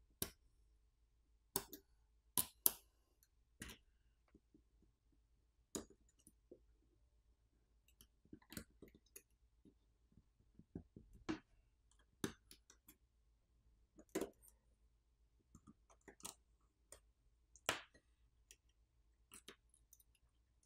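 Faint, irregular clicks and taps, a dozen or so spread through the stretch, from small repair tools and parts being handled while a smartphone is taken apart.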